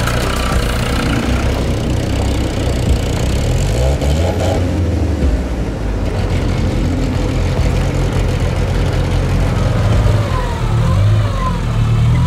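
Off-road 4x4 engine running and revving up and down, its pitch rising and falling several times, most strongly near the end.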